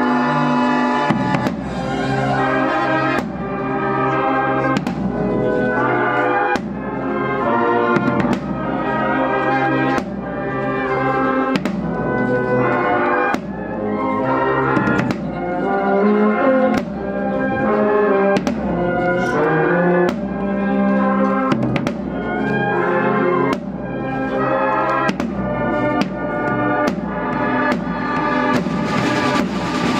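Cornet-and-drum band playing a Spanish Holy Week processional march, heard from beside the timpani. Sustained brass chords run over drum strikes that land at a regular, steady pace.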